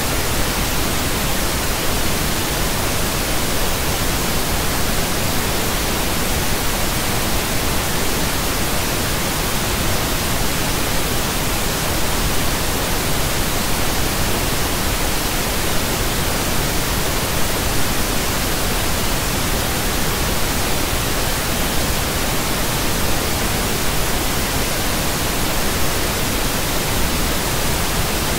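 Steady pink noise: an even, unchanging hiss spread across all pitches, with no tones or breaks.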